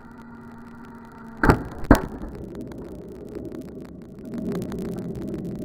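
Two sharp cracks about half a second apart as air-gun pellets strike an aluminium drink-can target, knocking it askew. A low rumble follows and grows louder near the end.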